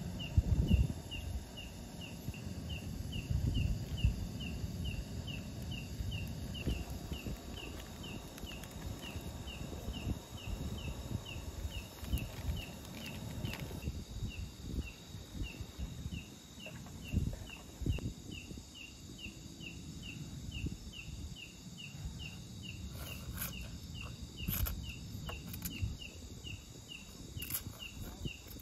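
An insect calling with a short high chirp repeated evenly about twice a second throughout. Under it runs a low rumble with irregular thumps, and a few sharp clicks come near the end.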